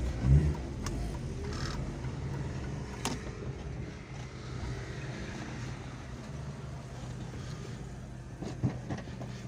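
Car engine running and road noise heard from inside the cabin of a Volkswagen Fox while driving. The hum is steady and low, with a brief louder surge just after the start and a few light clicks. No wheel noise is heard, the front brake pads having just been replaced.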